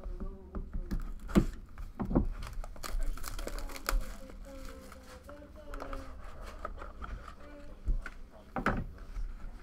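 Plastic shrink wrap being slit with a knife and crumpled as it is pulled off a sealed trading-card box, with a few sharp knocks as the box is handled.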